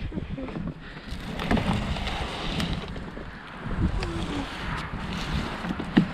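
Wind buffeting the microphone, with scattered rustling and clicks and a sharp knock near the end.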